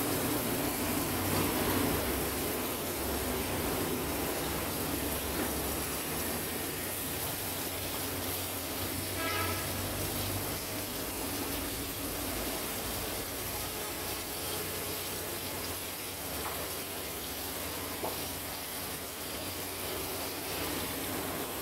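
Steady rushing background noise with a low rumble underneath, and a brief pitched sound about halfway through.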